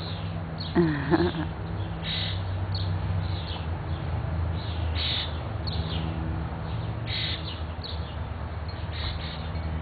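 Backyard songbirds chirping over and over in short, high notes, with one louder, harsher call about a second in. A steady low hum runs underneath.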